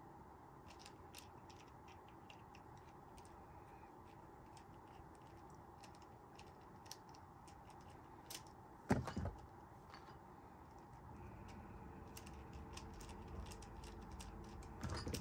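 Faint small metallic clicks and ticks of a screwdriver backing the rear sight screw out of a Crosman 157 CO2 air pistol, with one louder knock about nine seconds in.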